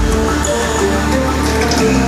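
Instrumental electronic dance music with a heavy bass line and held synth chords, played back through a TPA3116D2 class D amplifier board and its speakers, with the bass changing note near the end.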